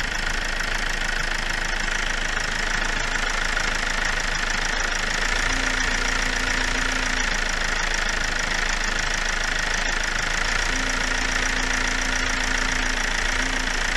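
Toyota Avensis 2.2 D-4D four-cylinder diesel engine idling steadily while it warms up after a coolant refill.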